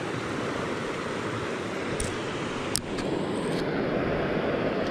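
Steady rush of a small stream's flowing water, with a few brief sharp clicks about two and three seconds in.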